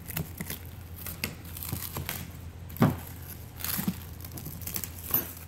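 Plastic wrapping crinkling and rustling as it is cut and pulled off a clear plastic hopper, with scattered crackles and one sharper knock about three seconds in.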